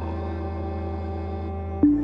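Ambient background music: soft sustained synth chords that change at the start, with a louder new chord struck near the end.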